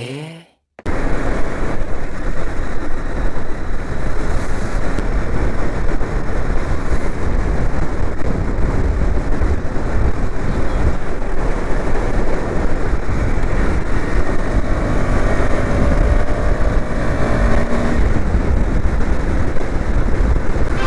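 Motorcycle riding, with heavy wind rush on the handlebar-mounted action camera's microphone. A KTM 250 Duke engine runs underneath, its pitch faintly rising and falling in places. The noise starts suddenly about a second in.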